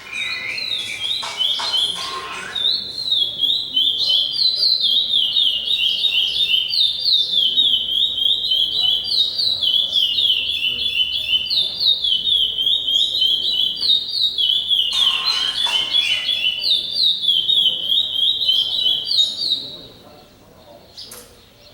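A songbird singing one long, unbroken song of rapid repeated chirping notes at a high pitch, stopping after nearly twenty seconds.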